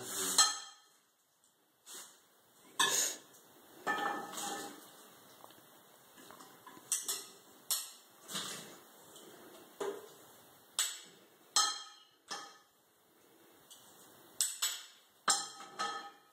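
Metal serving utensils clinking and scraping against a glass salad bowl and a plate as salad is tossed and served: a string of separate, irregular clinks, each with a brief ring.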